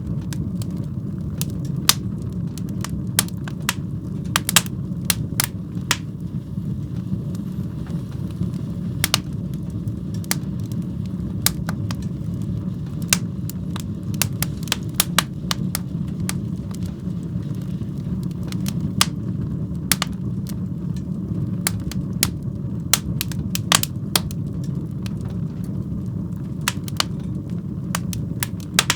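Fire burning in a fireplace, crackling with irregular sharp pops over a steady low rumble of the flames.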